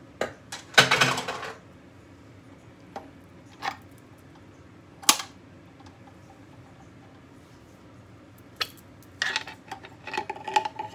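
Plastic parts of a KitchenAid food grinder attachment clicking, knocking and scraping as it is taken apart: a short clatter about a second in, a single sharp click near the middle, and a run of clicks and scrapes near the end as the auger is pulled out.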